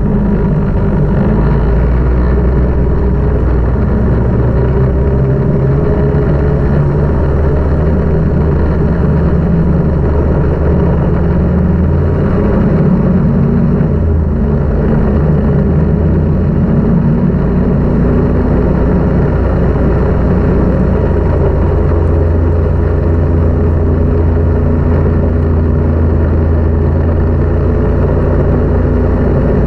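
Snowmobile engine running at speed, loud and steady, its pitch shifting up and down now and then with the throttle.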